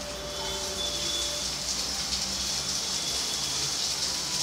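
Chopped onion sizzling in hot oil in a frying pan, a steady hiss that grows slightly louder as it fries.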